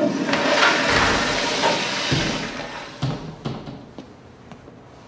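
A toilet flushing in a tiled restroom: a rush of water that swells and then fades away over about three seconds, followed by a few light knocks.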